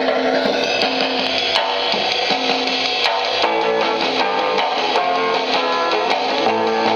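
A 45 rpm record playing through a 1950s RCA tabletop hi-fi record player with an 8-inch speaker: a song with guitar and drums.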